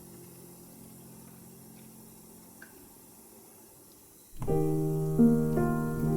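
Background piano music: a few seconds of faint, fading held notes, then a new piano passage starts abruptly about four seconds in, playing steady chords.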